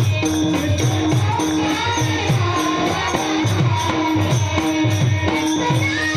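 Instrumental devotional accompaniment without voice: a mridang keeps a steady rhythm of deep strokes, about two a second, over jingling metal percussion and a held melody line.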